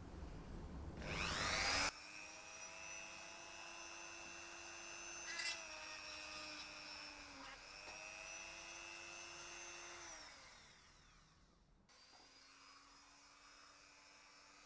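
Handheld rotary tool drilling a screw hole. The motor spins up with a rising whine about a second in, then runs at a steady high whine, its pitch dipping briefly as the bit bites, with one short click midway. It winds down with a falling whine, then starts again and runs steady at a slightly lower pitch near the end.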